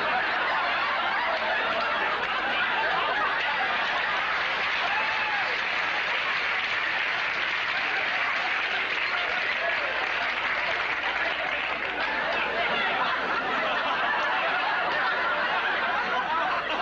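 Studio audience and cast laughing without a break, a long, steady wave of crowd laughter.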